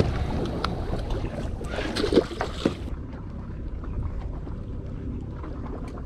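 Wind rumbling on the microphone aboard a boat at sea, with a few sharp knocks in the first half. The loudest knock comes about two seconds in, and the hiss thins out about three seconds in.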